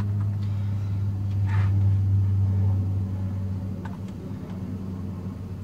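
Steady low hum of a fan or motor that grows somewhat quieter in the second half, with a faint short rustle of spice shaken from a jar and a light click of the jar.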